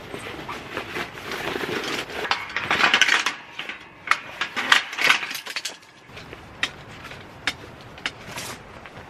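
Nylon carry bag rustling as a folding camp chair is pulled out, its metal poles tumbling out with a clatter. From about four seconds in come a string of sharp clicks and clacks as the pole frame is handled and fitted.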